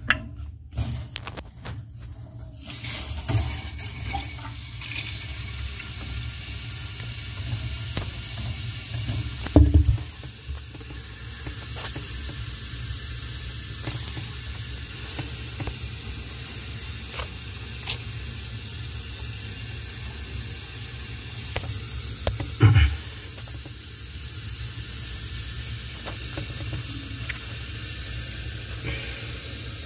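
Steady hiss of water running through the reopened bathroom supply plumbing, with two dull thumps, one about a third of the way through and one about three-quarters through.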